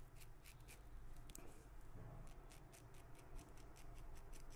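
King C. Gillette safety razor with a Wizamet Super Iridium blade cutting lathered stubble on the neck in quick short strokes, each a faint scratchy rasp, several a second.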